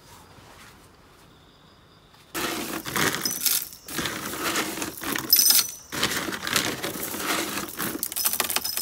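Crushed stone clattering and rattling as it is poured and scooped by hand from a plastic bag into a pit around plastic pipes, starting about two seconds in, in uneven bursts with short pauses.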